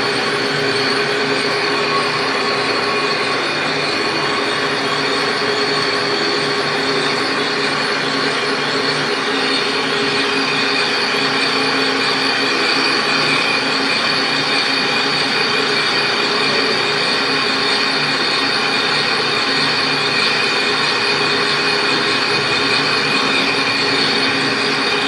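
A machine running steadily, with a constant high-pitched whine over a dense mechanical noise that holds level throughout.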